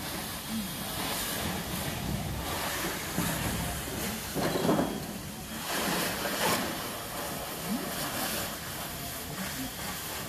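Steady hissing of a fire hose spraying water onto a burning car, the water flashing to steam, with louder surges about halfway through. Faint distant voices underneath.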